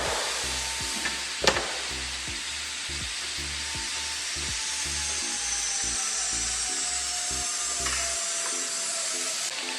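Background music with a steady, repeating beat over a steady hissing noise, with two sharp clicks in the first two seconds.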